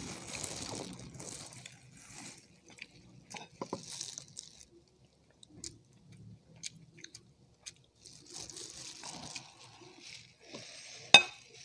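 Close-up eating sounds: biting and chewing on chicken wings, with rustling and small clicks from the hands and plates. A single sharp knock about 11 seconds in is the loudest sound.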